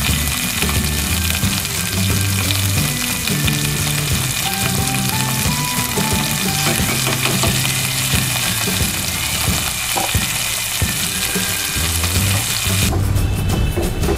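Tomatoes and oil sizzling in a hot non-stick kadai, stirred with a spatula. The sizzling drops away near the end. A light background music track plays underneath.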